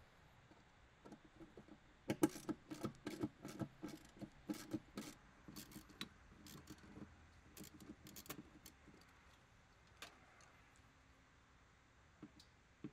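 Irregular metallic clicks and clinks, several a second, from a hand tool unthreading the bolts that mount a central air conditioner compressor to the condensing unit's base. They start about two seconds in and thin to a few single clicks near the end.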